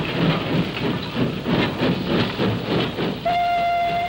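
Steam locomotive chuffing in a steady rhythm, then its steam whistle sounds about three seconds in as one steady, held note.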